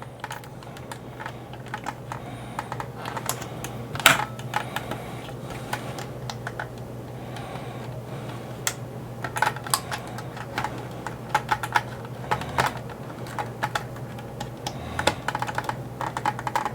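Small screwdrivers clicking and tapping against the hard plastic shell of a 1983 G.I. Joe Skystriker toy jet as its one-way pins are pried out. The clicks are irregular, with one sharp click about four seconds in and quick runs of clicks in the second half.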